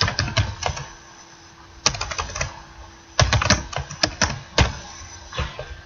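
Typing on a computer keyboard: quick bursts of key clicks, entering phone numbers into a form, with short pauses between bursts.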